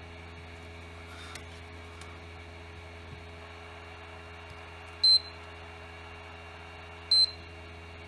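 Digital multimeter beeping twice, about two seconds apart, each a short high-pitched beep. It is the meter's continuity/diode-test beeper sounding as the probes are put across the MOSFETs on a brushless drill control board that is suspected to have a shorted MOSFET.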